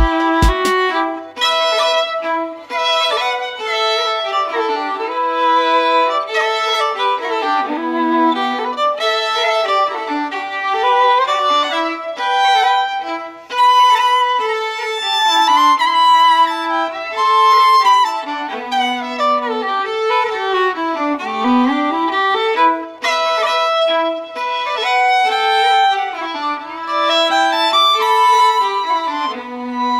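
Background instrumental music with a quick-moving melody of many short notes.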